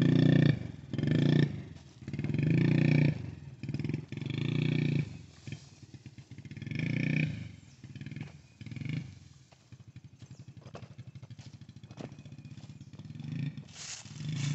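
Yamaha TT-R50's small 50cc four-stroke single-cylinder engine revving in short repeated bursts as the throttle is opened and let off. It drops to a quieter low running for a few seconds and picks up again near the end.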